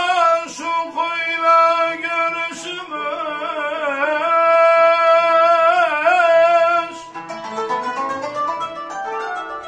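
A man sings a long, wavering, ornamented melisma in Turkish folk style over bağlama, oud and kanun. The voice stops about seven seconds in, and the plucked strings carry on with a rising run that fades near the end.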